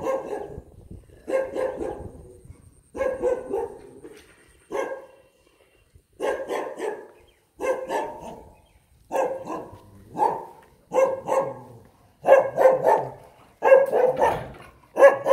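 A tied-up dog barking repeatedly at an approaching stranger. Single barks come every second or two, then bunch into quicker, louder runs of two or three barks near the end.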